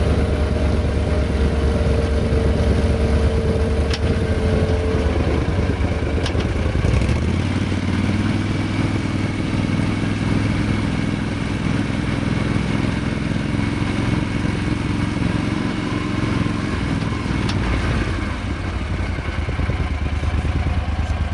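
Argo Avenger 750 EFI amphibious 8x8's V-twin engine running steadily under load as the vehicle drives. Its note drops and changes about five to seven seconds in, with a few light clicks over it.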